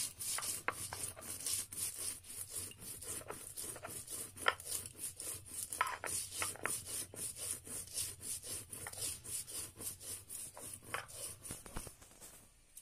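Whole coriander seeds being ground on a shil-nora: the stone roller is rubbed back and forth across the grooved stone slab in quick, even strokes, crushing the seeds. The strokes stop shortly before the end.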